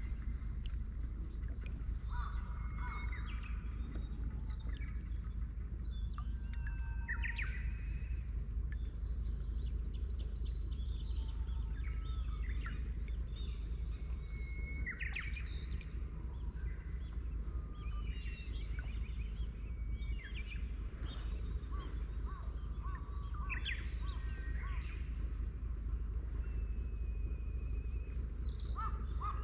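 Birds calling and chirping on and off throughout: short whistled notes and quick chirps, several at a time, over a steady low rumble.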